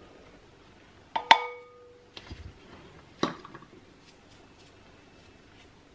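A plastic measuring cup knocking against a glass mixing bowl while flour is tapped out of it: two sharp clinks, the louder about a second in with a brief ringing tone from the glass, the other about three seconds in, with a few softer taps between.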